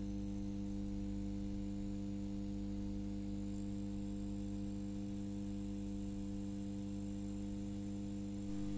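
Steady electrical mains hum from lit fluorescent tubes: a low, unchanging buzz with several overtones stacked above it.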